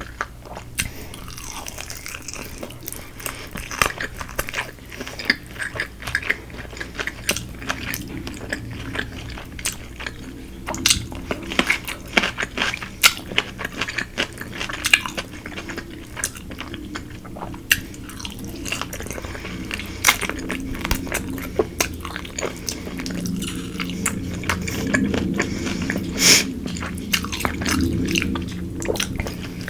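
Close-up chewing and biting into crispy Korean fried chicken, with many sharp crunches from the fried coating.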